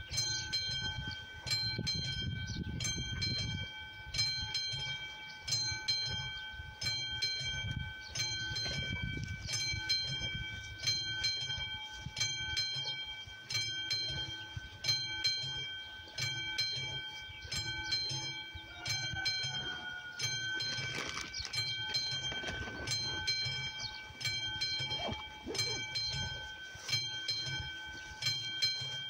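A level-crossing warning bell of the classic electromechanical type on AŽD 71 signals, struck over and over at a steady pace of about once a second, each strike ringing on. It is the crossing's warning that a train is approaching.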